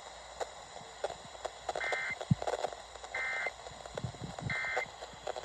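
Three short electronic beeps from a Midland WR-11 weather radio, evenly spaced about a second and a half apart, with a few faint clicks and knocks between them.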